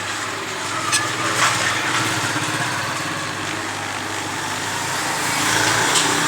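Hot air rework station's gun blowing steadily: the fan motor hums and air rushes from the nozzle, a little louder near the end. The heater is set low.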